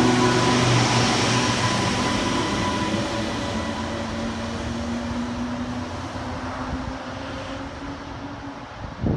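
Class 230 D-train, a former London Underground D78 unit converted to diesel with Ford Duratorq 3.2-litre van engines, pulling away. Its engine drone and a steady whine fade as it draws off into the distance. Wind gusts on the microphone right at the end.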